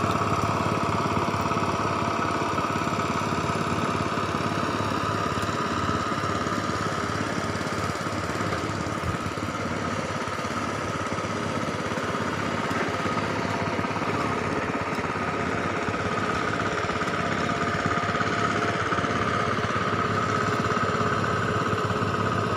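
A small engine running steadily: a continuous drone with a fast, even pulse that doesn't change.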